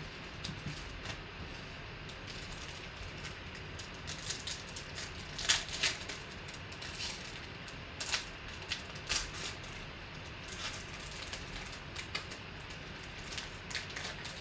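Foil wrapper of a 2018 Panini Contenders Optic football card pack crinkling and tearing as it is opened by hand, in short, scattered crackles over a steady low hum.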